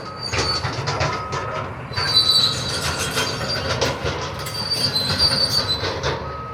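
Demolition machinery at work: high metallic squeals that come and go over continuous crunching and scraping of debris.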